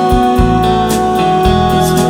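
Slow instrumental music with sustained guitar tones over long, low bass notes.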